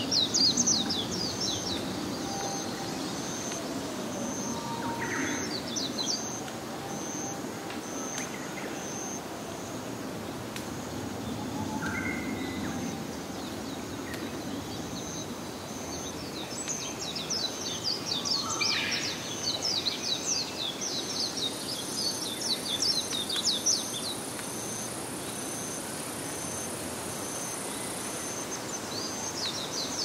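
Evening ambience of a forest pond: birds and insects calling over a low steady background hum. An evenly pulsed high chirp repeats throughout, and long bursts of rapid, high repeated calls come near the start, through the middle and again at the end, with a few short lower calls scattered between.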